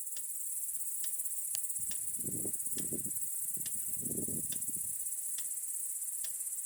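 Crickets chirping in a steady high trill, with soft low rustling sounds about two and four seconds in.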